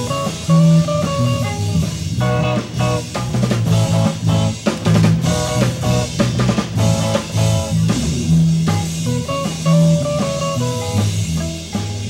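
Rock and roll band playing, with drum kit, guitar and bass.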